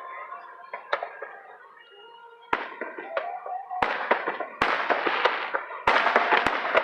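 Aerial fireworks display going off: about seven sharp bangs a second or so apart, each followed by a spell of crackling. The bursts come thicker and louder in the second half.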